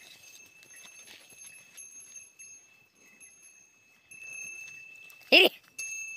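Buffalo and bullocks walking along a dry dirt track, their hoof steps faint, over a steady high-pitched tone that drops out for a moment in the middle. A single short, loud call with rising pitch cuts in about five seconds in.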